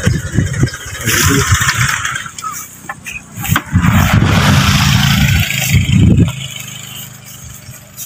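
Motor scooter engine running with a low rumble, then cutting off suddenly about six seconds in.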